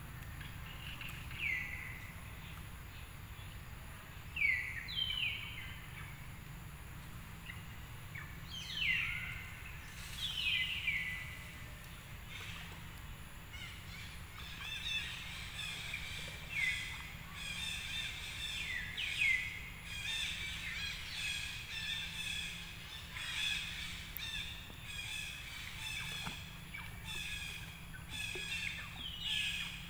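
Birds calling: short downward-sweeping calls come every few seconds, and about halfway through a dense, fast run of chirping joins them, over a steady low background rumble.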